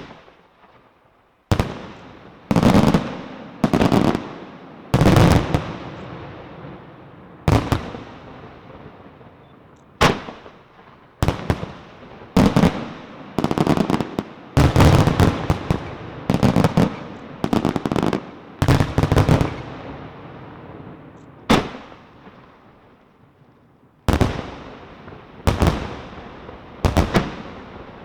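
Aerial fireworks shells bursting: about eighteen loud booms at irregular intervals, each echoing and fading over a second or two. They come most thickly around the middle.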